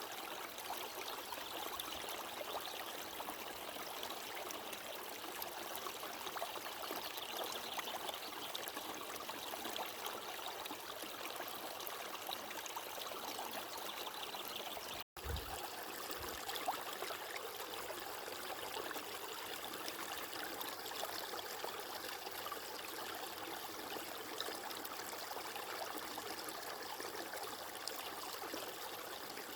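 Water flowing steadily in a stream, an even rushing trickle. About halfway through it cuts out for an instant, and a brief low thump follows as it resumes.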